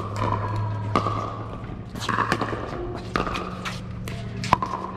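Pickleball rally: paddles hitting a hard plastic pickleball, a sharp pock about once a second, the last one the loudest. A steady low hum runs underneath.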